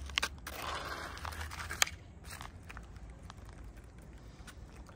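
Cats chewing wet food from thin clear plastic trays. In the first two seconds there is plastic crackling and scraping with two sharp clicks as a tray is set down, and after that only faint chewing clicks.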